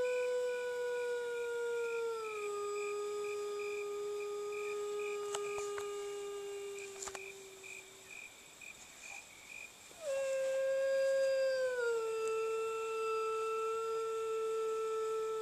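A woman imitating a wolf howl with her voice, as used in wolf surveys to draw an answering howl from wild wolves. One long howl is held on a steady pitch, drops a step about two seconds in and fades out around eight seconds; a second howl begins about ten seconds in, starting higher and dropping a step the same way.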